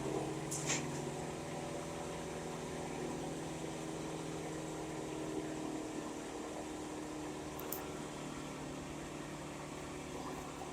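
An engine idling steadily, with two short clicks, one about half a second in and one near the end.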